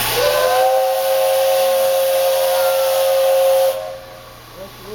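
Steam whistle of JNR Class 8620 steam locomotive No. 8630 sounding one long blast of several tones at once over steam hiss, the departure whistle before the train sets off. The blast is loud and steady for about three and a half seconds, then cuts off sharply.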